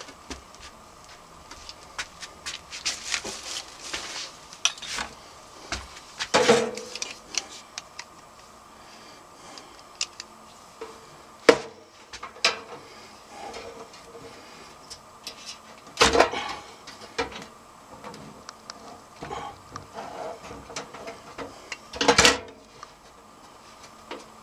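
Metal tools and parts being handled on a steel desktop computer case during disassembly: scattered clicks, taps and knocks, with a few louder clattering knocks.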